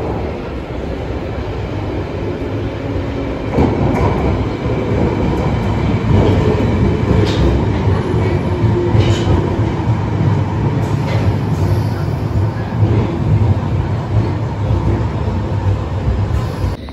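London Underground train running on the rails: a loud, steady rumble that grows louder about three and a half seconds in.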